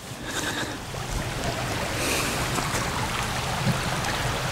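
Steady rushing of wind buffeting the microphone, with a shallow creek running, swelling over the first second and then holding.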